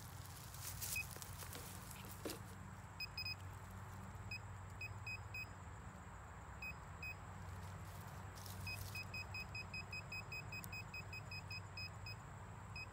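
Metal detector beeping over a buried metal target: short high beeps, scattered at first, then a fast even run of about four or five a second over the last few seconds as it sweeps across the target.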